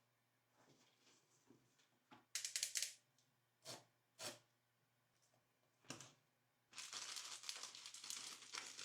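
Handling noises while packing an order: a short loud crinkle of packaging, a few light taps and clicks, then a longer stretch of crinkling and rustling of packaging near the end.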